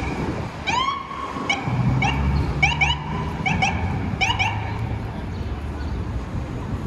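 Small dog yipping: a string of short, high yips, several in quick pairs, stopping about four and a half seconds in. A low vehicle rumble runs underneath.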